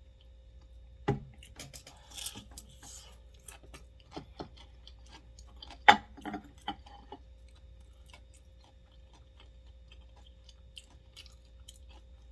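Scattered light clicks and taps of dishes and utensils being handled at a table, with two louder knocks, one about a second in and one near the middle.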